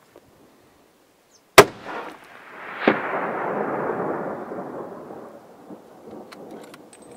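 Single rifle shot: a sharp, loud crack about a second and a half in. A duller crack follows just over a second later, and a long rumbling echo rolls off the mountainside and fades over a few seconds. A few small clicks come near the end.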